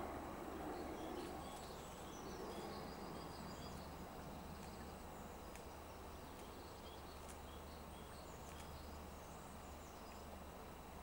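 Faint outdoor ambience: small birds chirping in short, high calls again and again in the background, over a steady low rumble. A louder rumble fades out over the first two seconds.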